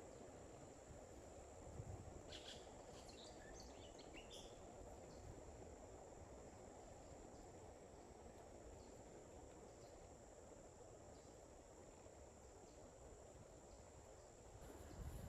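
Near silence: faint outdoor ambience, an even low hiss with a thin steady high-pitched tone, and a few brief faint chirps about two to four seconds in.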